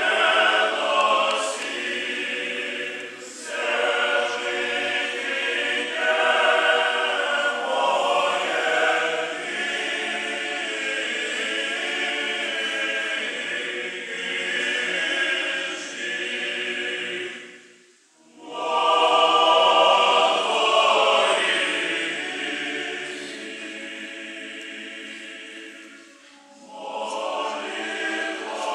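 Orthodox church choir singing unaccompanied in long phrases, with one short break about two-thirds of the way through.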